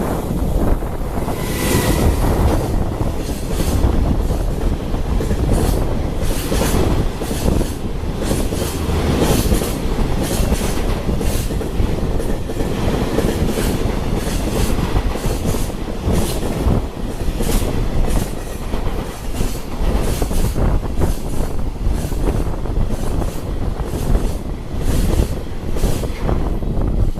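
A long freight train of Koki container flatcars, hauled by an EF210 electric locomotive, passes close by at speed. The wheels clatter rhythmically over the rail joints, with a brief high squeal about two seconds in.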